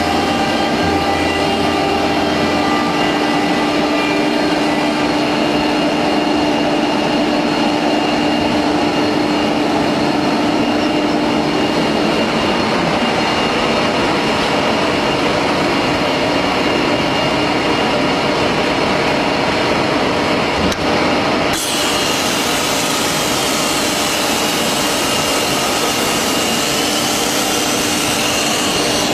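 XJ1325 CNC wood router running: a steady spindle whine over machining noise. About three-quarters of the way through the sound changes abruptly to a brighter, hissier cut with slowly wavering tones.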